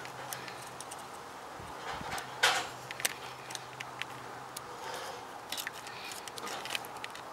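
Small metal clicks and scrapes from pointed pick tools prying the wire retaining clip off a fuel injector's electrical connector, scattered through, with the loudest click about two and a half seconds in.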